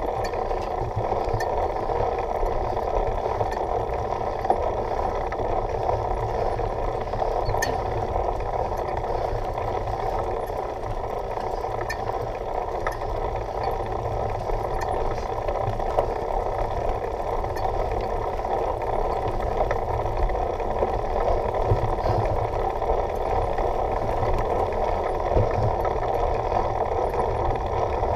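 Mountain bike riding a dirt forest trail, heard from the rider's onboard camera: a steady rumble and rattle from the bike going over the ground, with scattered sharp clicks.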